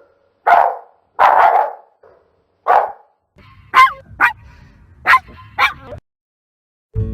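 Shiba Inu barking: three full barks, the middle one drawn out, then four short, sharp, higher yips in two quick pairs.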